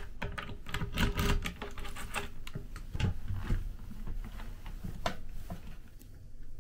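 A key clicks in the lock of a small storage locker, then the locker is pulled open with a run of rattling clicks and knocks from the door and the dangling keys, and a few more knocks after.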